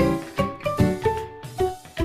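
Background music: a tune of short notes, each starting sharply and fading, about two or three a second.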